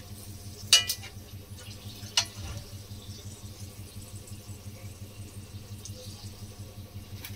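A metal spatula knocks twice against an aluminium kadai, the first knock ringing briefly, over a faint steady sizzle of whole spices frying in mustard oil.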